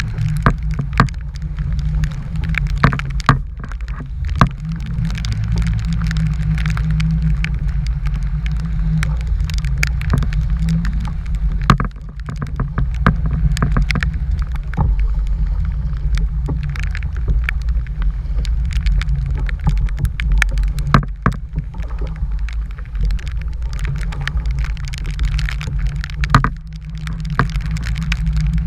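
Strong wind rumbling on the microphone, with many irregular sharp ticks and taps of something striking close by.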